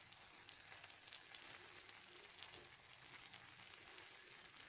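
Near silence: a faint hiss with a few soft, light crackles, one a little louder about a second and a half in, as crisp fried onions are scattered by hand onto rice in a metal pan.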